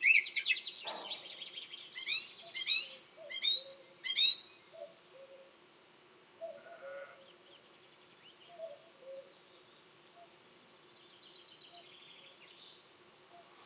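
Song thrush singing. A short phrase, a quick trill, then one loud rising note repeated about four times, and the song stops about five seconds in. After that a distant cuckoo calls faintly, and near the end a chaffinch gives a faint trill.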